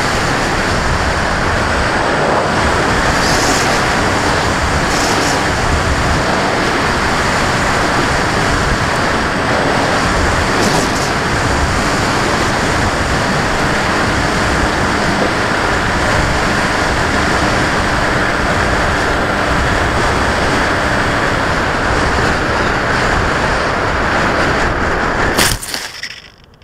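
Steady, loud rushing noise of wind and motor picked up by the onboard camera of a radio-control FPV aircraft in flight. It cuts off suddenly near the end.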